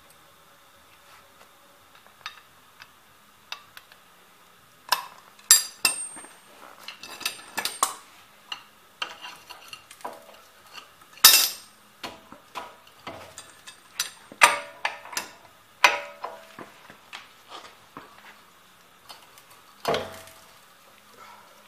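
Metal hand tools clinking and clanking: a 30 mm socket and long bar being handled and fitted onto a car's front axle spindle nut. The clinks are sparse at first and come thick from about five seconds in, with a loud clank near the end.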